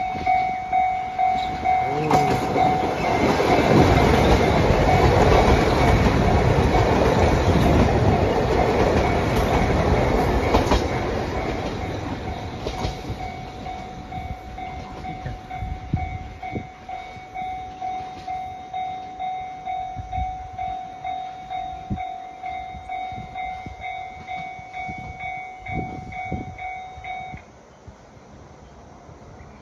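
A KiHa 261 series diesel limited express train passing at speed: loudest a few seconds in with rumble and wheel clatter, then fading as it moves away. A level crossing warning bell rings in an even, pulsing rhythm throughout and stops near the end.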